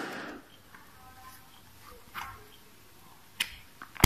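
A few sharp clicks and small handling noises, spread a second or two apart.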